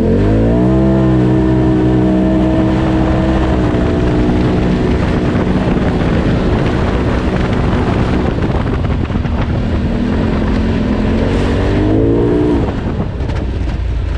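Polaris RZR Turbo side-by-side's turbocharged two-cylinder engine revving up hard under throttle, holding high revs, easing off, then climbing again and dropping sharply as the throttle is let off near the end. Rough rumble and clatter from the machine driving over the wooded trail lies underneath.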